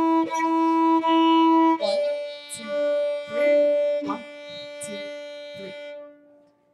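Violin bowing the closing notes of a beginner exercise in 3/4 time on the D string: E notes, then a long held open D that fades out about six seconds in.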